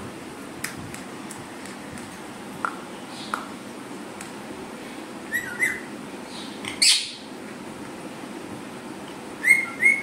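Pet parrot giving short whistled notes and chirps, mostly in quick pairs, with one louder harsh call about seven seconds in.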